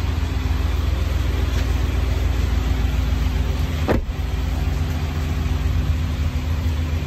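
Car driving on the road: a steady low engine and road rumble, with a short break about four seconds in.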